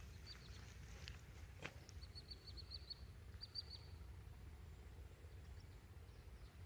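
Near silence with faint background noise, broken by a small bird giving two quick runs of high chirps, about two and three and a half seconds in.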